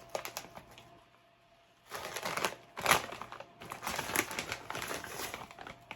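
Rap Snacks potato-chip bag crinkling and chips crunching, in bursts with a pause of about a second near the start.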